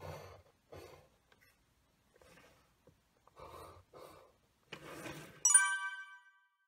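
Pencil drawing short lines on drafting paper, several brief scratchy strokes. About five and a half seconds in, a bright chime rings out and fades within a second, the loudest sound here.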